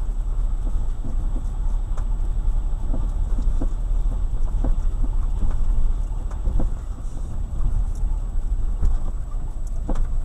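Subaru Forester rolling over bumps, a steady low rumble broken by sharp knocks at irregular intervals, about one a second. The knocks come from the front-right suspension on every bump, a fault whose cause the owner has not yet found.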